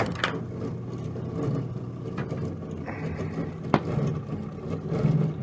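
Microwave ovens running with a steady electrical hum and the rough noise of a failing cooling fan, broken by a few sharp clicks.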